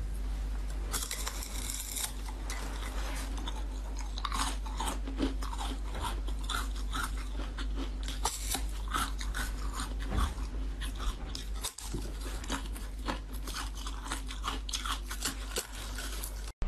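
Thin discs of frozen ice, one set with basil seeds, being bitten and chewed: many sharp cracks and crunches in an uneven series, over a steady low hum.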